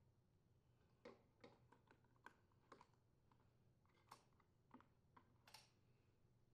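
Near silence with scattered faint clicks and light taps: metal engine parts being handled on a small engine.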